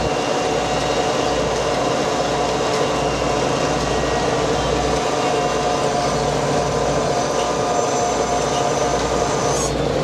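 Purse seiner's diesel engine and deck machinery running steadily during the net haul, a loud continuous hum with several steady tones over a low pulsing rumble.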